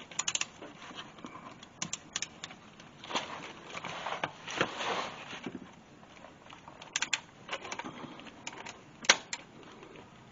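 Socket ratchet with a 19 mm socket clicking in several short runs while loosening the drain plug of a CVT transmission.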